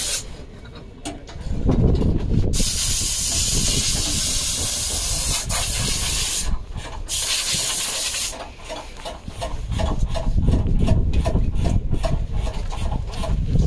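Rallycross car driven hard on track, its engine under a loud rushing hiss of wind and tyre noise. The sound drops away briefly twice, and a quick pulsing comes in over the last few seconds.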